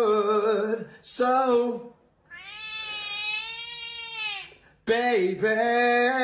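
A man's voice in drawn-out, wavering notes, broken by a cat's single long meow lasting about two seconds that rises then falls in pitch, after which the man's held notes come back.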